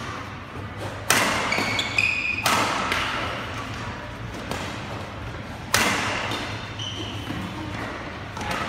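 Badminton rally: racket strings hitting a shuttlecock sharply about four times, each hit echoing through a large hall, with short squeaks of court shoes on the mat between hits.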